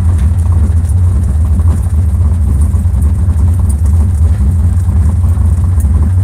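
Bajaj three-wheeler's four-stroke engine running steadily with a deep, very loud low rumble, heard from inside the cabin.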